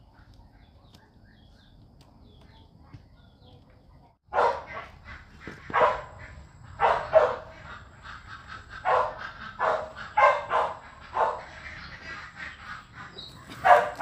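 Faint chirps for about four seconds, then an animal calling loudly over and over in short calls, roughly one a second.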